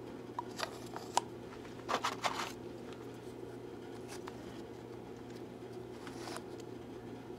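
Hands handling a fountain pen and its parts over crinkled kraft-paper packing: a few light clicks in the first second or so, a louder cluster of clicks and scraping about two seconds in, and a faint rustle near the end, over a steady low room hum.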